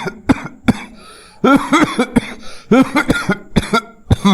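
A man's voice-acted coughing. A few single coughs come first, then two rapid fits of coughing, one about a second and a half in and one about three seconds in, and a last cough near the end.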